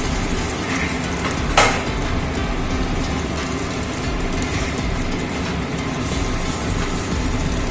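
Maggi noodle pakoras deep-frying in hot oil, a steady sizzle, with one sharp tap about one and a half seconds in.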